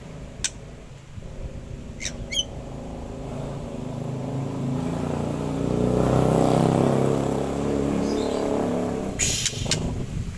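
A motor vehicle passes, its engine swelling to loudest in the middle and then fading. A lovebird gives a few short, sharp chirps near the start and again just before the end.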